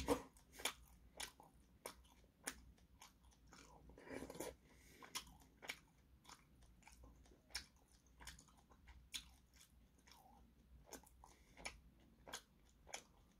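A person chewing food close to the microphone: faint, wet mouth clicks and smacks at an irregular pace, about one or two a second.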